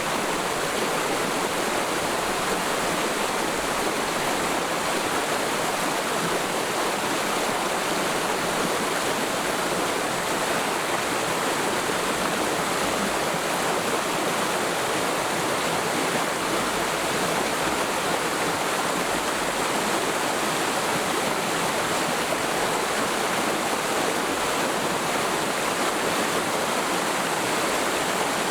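Mountain stream in a forest valley flowing steadily, an even rushing of water over rocks.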